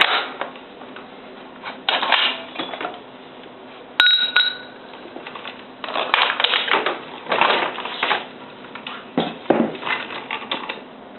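Metal clinking and scraping as a motorcycle rear axle is slid out through the swingarm with an axle tool, in several short bursts, with a sharp metallic ping that rings briefly about four seconds in.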